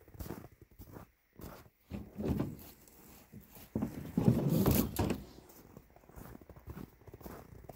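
Footsteps in snow, with a louder scraping clatter about four seconds in as a small metal wood stove is lifted out of a plastic sled.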